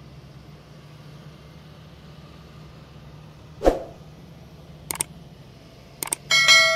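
Farm tractor engines running steadily as tractors drive past slowly, a low, even drone. A little past halfway there is a single sharp hit, then a couple of quick clicks, and near the end a loud metallic clang that rings on and fades.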